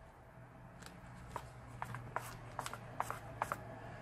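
Foamy slime being stirred with a plastic spoon: irregular soft clicks and pops as air bubbles in the foam burst and squish. They come several a second from about one second in.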